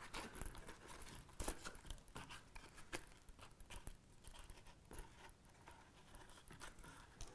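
Faint rustling and scratching of waxed thread being drawn through the stitching holes of a leather case during hand saddle stitching, with scattered light clicks from the needle and leather being handled.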